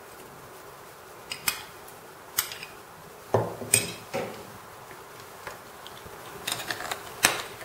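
A metal spoon and a small glass cup knocking and clinking against a bowl as chopped cilantro is scraped into beaten egg and stirred in: a scattering of separate sharp knocks, the loudest a little before halfway and near the end.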